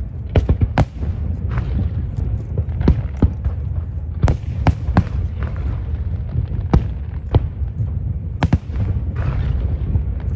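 Aerial fireworks bursting: a quick, irregular string of sharp bangs over a continuous low rumble.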